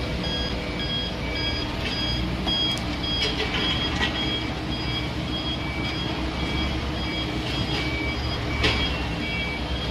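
Truck reversing alarm beeping at an even pace over the steady low running of the engine as a loaded semi-trailer dump truck backs up; a few sharp knocks, the loudest near the end.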